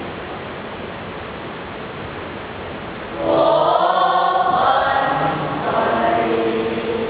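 School choir singing: a quiet passage, then about three seconds in the voices come in loud, holding sustained chords.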